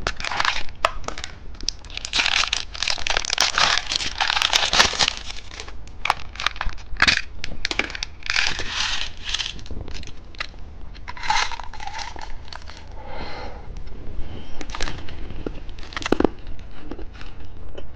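Plastic candy packaging crinkling and tearing as it is handled and opened, in irregular rustling bursts with a few sharp clicks.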